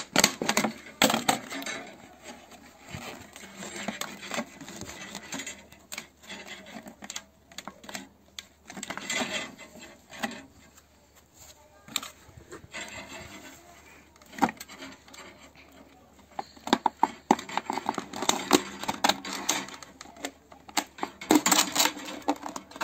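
Clear plastic bottle and its hanging wire handled by gloved hands: irregular crinkling, rubbing and clicking of thin plastic, with a busier, louder run of clicks and knocks over the last few seconds as the bottle is set on a round tray.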